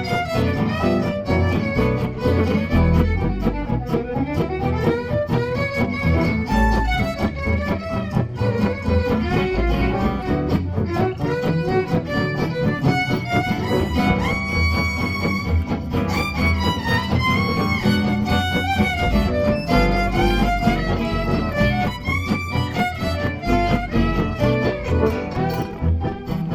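Violin with guitar accompaniment playing an instrumental tune, the violin carrying a busy, quick-moving melody.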